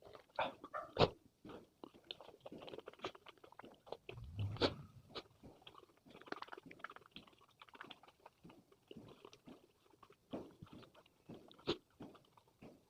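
Close-miked chewing and mouth sounds of a person eating rajma chawal (kidney bean curry with rice), a steady run of small wet clicks. Sharper crunches stand out about a second in, a little past the middle, and near the end.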